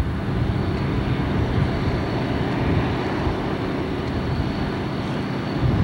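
Steady low rumble of a diesel locomotive running.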